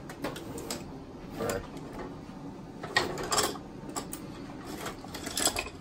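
Hand tools clinking and clattering as someone rummages through the top tray of a metal toolbox: a string of irregular clanks, bunched about three seconds in and again near the end.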